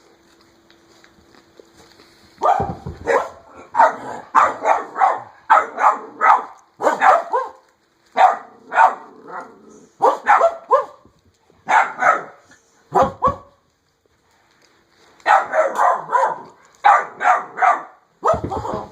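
Dog barking in rapid runs of short barks, with a pause of a second or two before a second run of barks.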